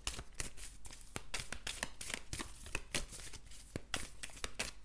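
Tarot cards being shuffled by hand: a quick, irregular run of soft card flicks and snaps.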